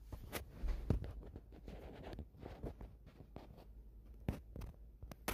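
Handling noise: scattered small knocks, taps and rustles close to the microphone, the loudest knocks about a second in and about four seconds in.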